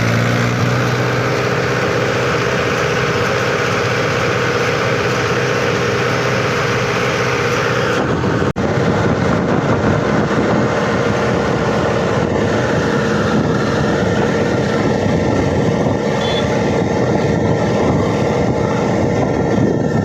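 Mahindra tractor's diesel engine running steadily under way on the road, with road noise; the sound drops out for an instant about eight seconds in and carries on.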